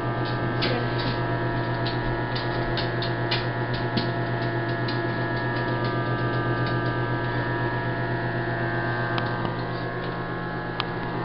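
Microwave oven running with a steady electrical hum, with a scatter of small sharp clicks and pops, most of them in the first half and one more near the end: an egg inside starting to sizzle as it heats.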